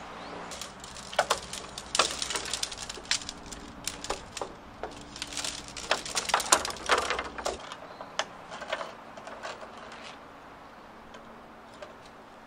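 Tent poles clattering and clicking as they are handled and fitted together on a wooden deck. The clatter is busiest in the first eight seconds, then thins to a few faint clicks.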